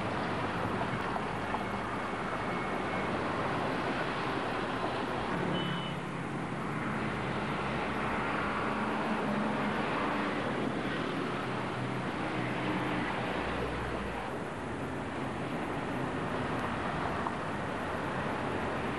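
Steady road-vehicle noise: an engine running along with road and traffic rumble, a low engine hum coming up through the middle of the stretch.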